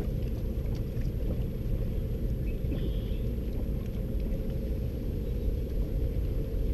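Steady low rumbling noise, with a few faint ticks and a brief high chirp about three seconds in.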